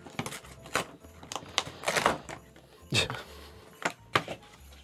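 Cardboard advent-calendar packaging being handled: a series of clicks, taps and rustles as a perforated door is pushed open and the chunky box behind it is worked out.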